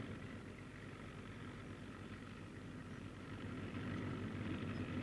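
Propeller airliner's piston engines running, a steady drone that grows slowly louder.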